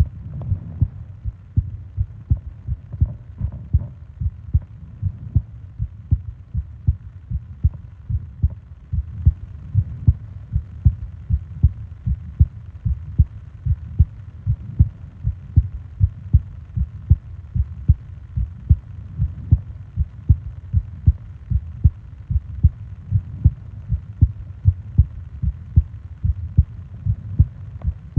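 A person's heartbeat: a slow, regular run of low, soft thuds that keeps an even pace throughout.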